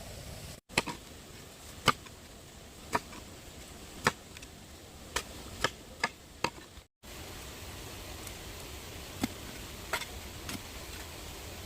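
A tool striking bamboo in sharp single knocks, about one a second, with a quicker run of four strikes in the middle.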